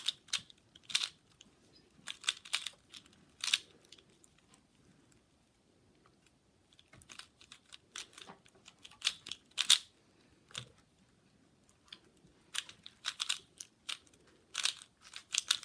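Plastic Rubik's cube being turned by hand during a speedsolve: quick clusters of clicking, clacking layer turns, with a short pause in the turning a few seconds in.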